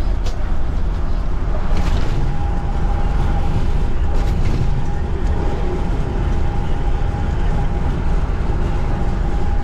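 Motorhome driving at highway speed, heard from inside the cab: a steady low rumble of engine and road noise, with a thin steady hum joining about a second and a half in.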